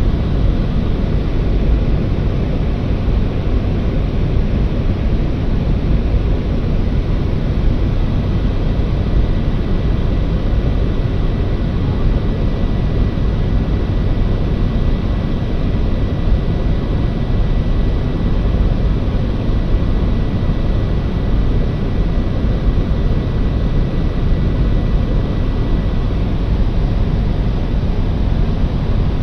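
Steady cabin drone of a small propeller aircraft in flight, a deep rumble with a faint high whine on top that fades out near the end.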